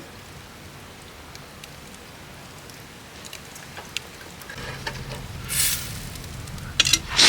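Campfire crackling with faint scattered ticks, then a few louder hissing crackles about five and a half seconds in and again near the end.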